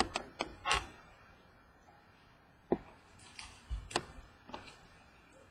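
Light clicks and taps of trading cards being handled, scattered irregularly: a few in the first second, one near the middle, then a quick run of them.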